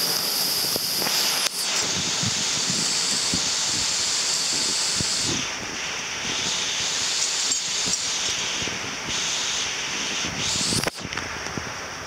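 Steady rushing hiss of falling water from a waterfall, its tone shifting a couple of times and dropping in level near the end.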